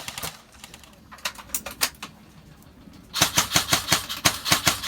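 Airsoft guns firing: a few single shots in the first two seconds, then from about three seconds in a rapid string of sharp cracks at about seven a second.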